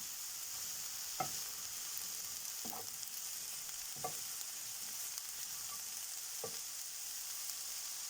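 Diced eggplant and bell pepper sizzling as they fry in a little vegetable oil, a steady hiss. The vegetables are being stirred, and a utensil knocks against the pan about four times.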